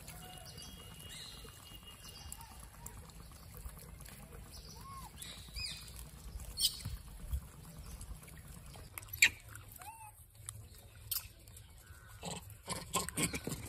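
Rhesus macaques feeding in a group, giving scattered short calls and squeaks, with sharp clicks and rustles from handling food that come more often in the second half.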